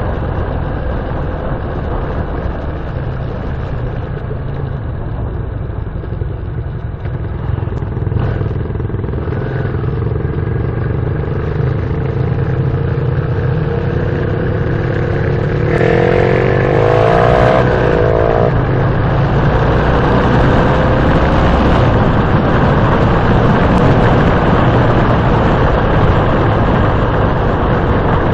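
Motorcycle engines running steadily on a ride, a continuous drone whose pitch drifts slowly. A little past halfway a louder, rougher engine sound comes in for about two seconds, then fades back into the drone.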